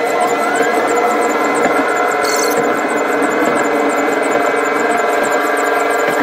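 Rail-mounted excavator running as it travels along the track: a steady mechanical hum carrying several whining tones, one of which rises briefly about half a second in.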